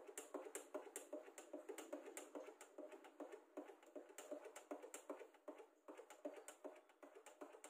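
Faint, quick light clicks or taps, about three a second and unevenly spaced.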